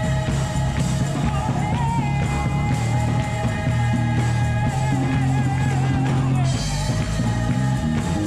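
Gospel band music: an electric bass (a Wing bass) plays held low notes that change every second or so under long, sustained sung lines.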